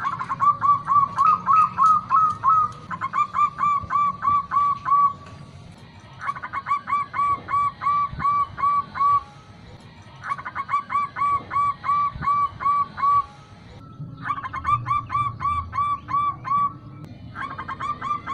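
Zebra dove (perkutut) singing: six bouts of quick, repeated cooing notes, about three to four a second, each bout two to three seconds long with short pauses between.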